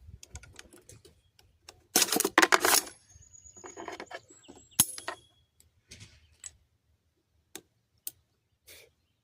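Metallic clicks and rattles from handling gear, with a dense clatter about two seconds in and a sharp single click near the middle, then a few scattered clicks.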